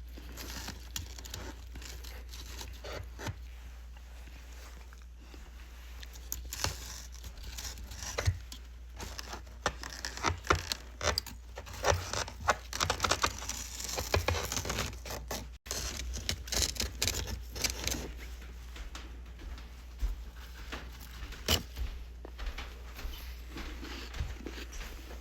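Frost being scraped and broken off: irregular crackling scrapes and sharp clicks, busiest in the middle, over a steady low hum.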